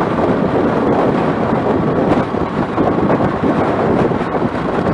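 Wind rushing and buffeting over the microphone, a loud steady rumble with no engine note standing out.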